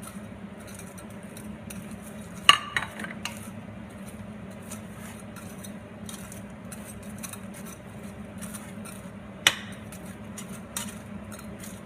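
A utensil stirring honey-coated chicken in cookware, with soft scraping and clicks and two sharp clinks against the dish, about two and a half seconds in and near the end. A steady low hum runs underneath.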